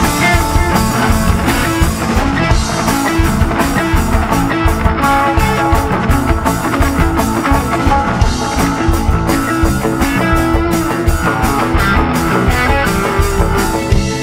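Live rock band playing an instrumental jam: electric guitars over a steady drum-kit beat, with keyboards.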